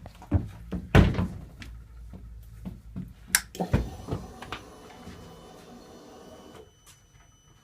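Sharp clicks and knocks of the Yamaha R6 being handled, the loudest about a second in. Then a faint steady hum with a thin high whine runs for about three seconds and cuts off abruptly: the fuel pump priming as the ignition is switched on, before a start attempt.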